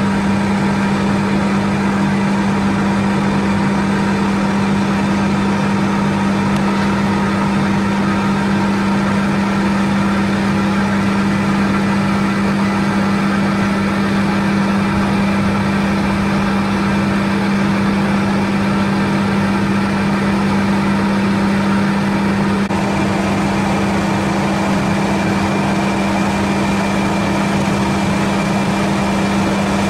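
Machinery of a biomass producer-gas (gasification) plant running steadily: a loud, even machine hum with a strong low steady tone.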